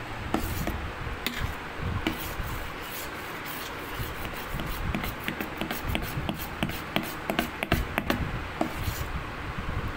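Ladle stirring thick dosa batter of ground rice and urad dal in a stainless steel bowl: wet rubbing and scraping with many irregular small clicks.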